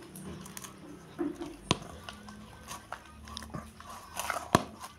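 Hands kneading soft, sticky yeast dough with margarine in a stainless steel bowl: wet squelching and slapping with small ticks, and two sharp knocks, one about a second and a half in and a louder one near the end.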